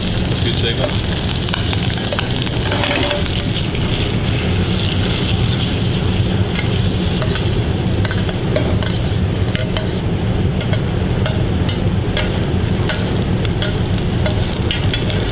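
Metal spoon stirring and clicking against a small stainless-steel saucepan while butter emulsion sizzles in it over a gas burner, glazing the pasta. The clicks come often, more so in the second half, over a steady low hum.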